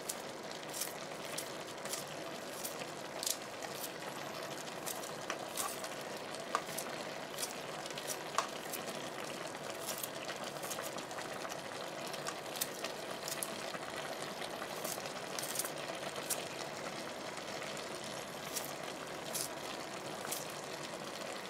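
Diced zucchini, carrot and onion simmering in oil and their own juice in an open kazan: a steady bubbling hiss with scattered sharp pops and clicks.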